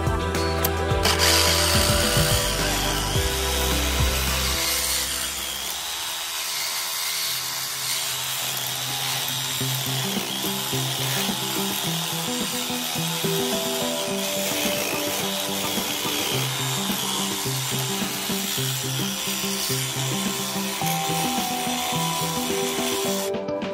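A power tool running steadily, starting about a second in and cutting off just before the end, over background music with a steady beat.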